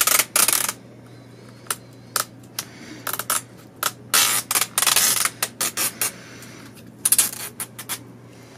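Adhesive strips being peeled off the metal back edge of an iMac LCD panel: a series of short tearing rips, the longest about four seconds in, with quieter gaps of hand handling between them.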